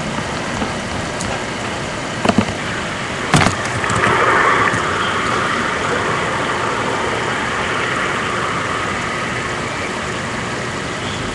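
A steady hum and hiss, like a vehicle engine running, with a couple of sharp clicks about two and three and a half seconds in.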